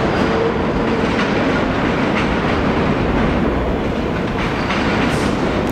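New York City subway train running out along the track into the tunnel: steady wheel-on-rail noise with a few clacks as the wheels cross rail joints.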